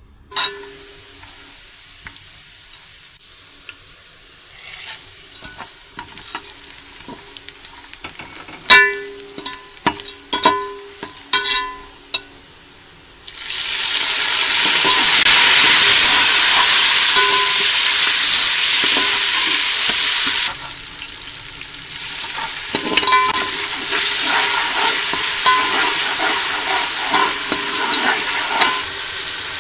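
Metal clinks and knocks of a spoon on an aluminium pot. About halfway through, a sudden loud sizzle starts as sliced tomato goes into hot oil with fried onions. After several seconds it settles to a steadier, quieter frying sizzle under the slotted spoon stirring and scraping the pot.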